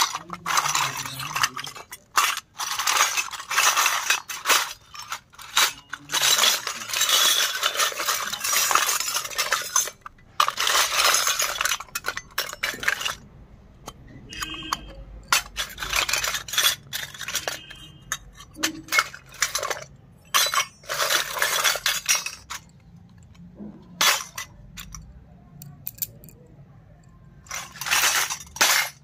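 Miniature stainless steel toy pots, cups and lids clinking and clattering against each other and against small plastic pieces as hands stir through a plastic basket. The dense clatter thins to sparser single clinks about halfway through, where a small steel cup gives a brief ring.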